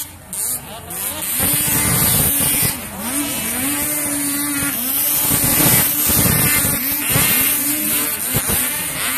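A pack of two-stroke racing snowmobiles passing close, their engines revving up and down in pitch. They get louder about a second and a half in.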